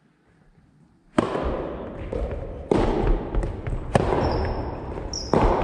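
Soft tennis rally: a rubber ball struck by rackets, about four sharp hits roughly a second and a half apart, each ringing on in the hall's echo. A brief high squeak comes a little after the middle.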